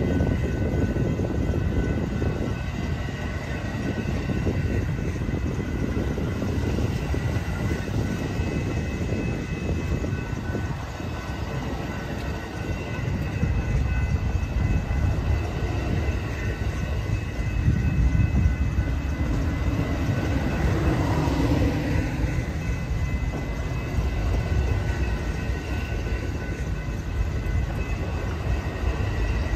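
Amtrak Superliner bilevel passenger cars rolling past, a steady rumble of steel wheels on the rails, with a few faint steady high-pitched tones over it.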